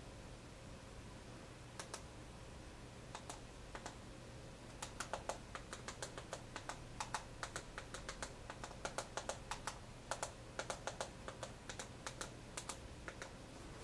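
Light plastic clicks of typing a search phrase letter by letter. A few scattered clicks in the first seconds, then quick irregular runs of them.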